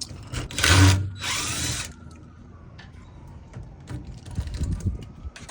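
Power drill run in two short bursts, one about half a second in and a longer one just after, then quieter clicks of handling.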